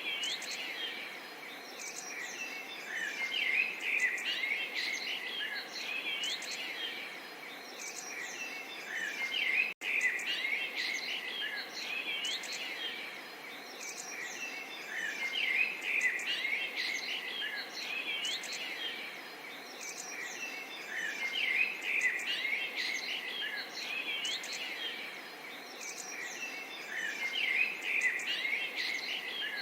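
Many small songbirds chirping and twittering over a soft, steady babble of water. The sound cuts out for a moment about ten seconds in.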